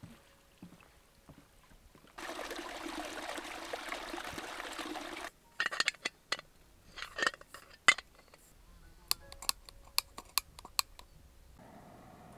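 Rushing water for about three seconds, starting and stopping abruptly, followed by a scattered run of sharp clicks and taps.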